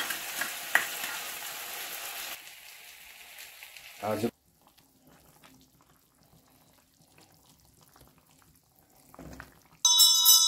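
Food sizzling in a hot wok at first, then near silence. Near the end a small metal hand bell starts ringing loudly, shaken rapidly several times a second.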